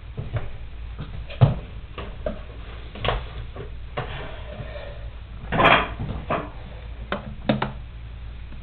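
Scattered clicks and knocks of plastic bottles being handled while vinegar is poured into a thin water bottle, with the loudest knock about two-thirds of the way through.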